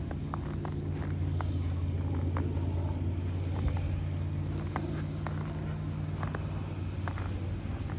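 A steady low mechanical hum, with light scattered ticks and crunches from huskies' paws moving in snow.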